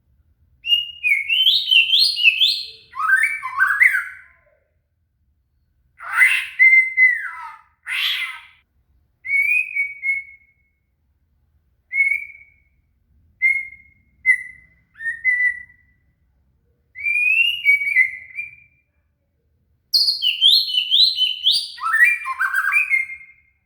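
White-rumped shama (murai batu) singing: bursts of quick, rapidly gliding whistled phrases, some falling steeply in pitch. Between them come pauses and a run of short single whistles near the middle.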